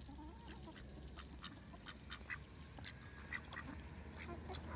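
Ducks quacking quietly as a flock of ducks and chickens feeds on grain, with many short, irregular clicks. A faint call comes right at the start.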